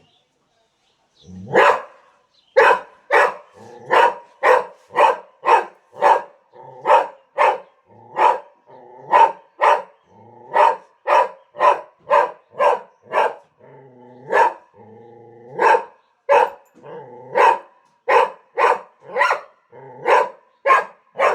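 A pet dog barking over and over, about two barks a second, with a short lull a little past the middle before the barking picks up again.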